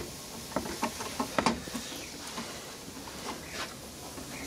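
Handling sounds on a workbench: a scatter of light clicks and knocks as hard plastic and metal parts are moved about, busiest in the first second and a half and thinner after.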